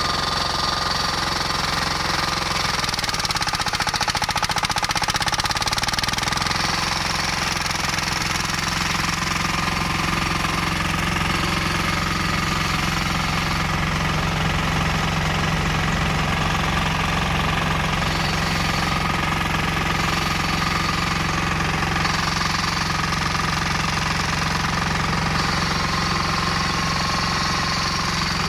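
Flail mower's 18 hp diesel engine running steadily.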